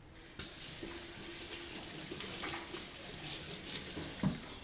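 Kitchen tap running into a sink as a steady hiss for about three seconds, starting shortly after the beginning and stopping near the end, followed by a single short knock.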